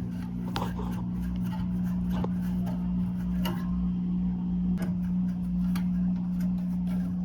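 Scattered light clicks and taps of furnace parts and tools being handled during cleaning, over a steady low hum.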